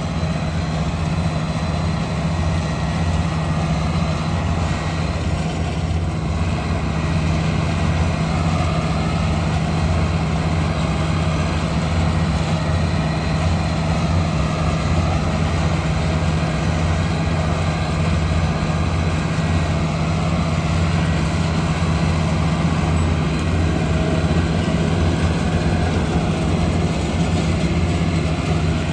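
Truck driving on a road, heard from inside the cab: a steady low engine drone with road noise.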